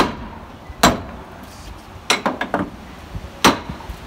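Sharp metal clanks and knocks from the smokebox door of steam locomotive 56548 as its handwheel latch is worked and the door secured: one at the very start, another about a second in, a quick run of several just after two seconds, and one more near the end.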